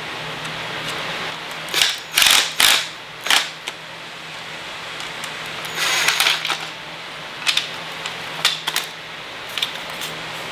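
Hard plastic dash-trim and mounting-bracket pieces clicking and clattering as they are handled and fitted together, in short irregular bursts, with a steady low hum underneath.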